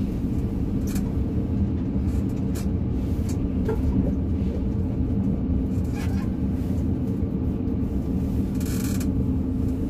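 Excavator diesel engine running steadily, heard from inside the operator's cab, with short creaks and clicks now and then that the operator puts down to his seat.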